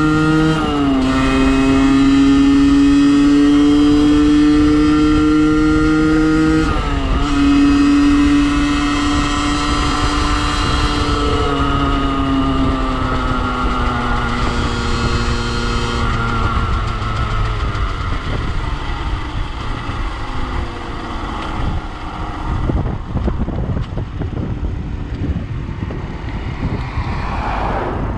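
Beta RR50 Track's 50cc two-stroke single engine, with its rev limiter disconnected, accelerating hard through the gears. The engine note climbs, drops with an upshift about a second in and again about seven seconds in, and climbs again. After about eleven seconds it falls away and then fades as the bike slows.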